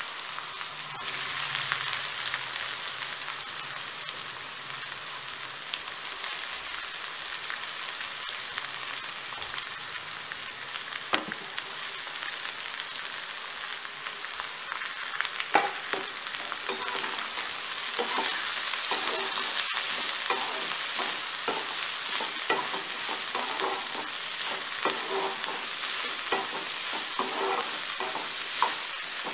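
Chopped onions sizzling in hot oil in a non-stick kadai, steady hissing just after they have gone into the pan. From about halfway through, a perforated steel spatula stirs and scrapes them, adding frequent clicks and scrapes against the pan.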